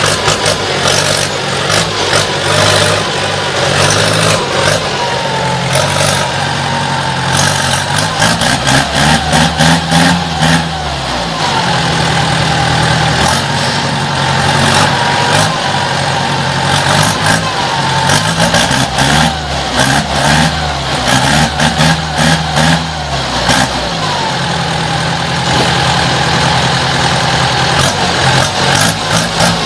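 Ford 5000 tractor engine running, revved up and let back down to idle several times.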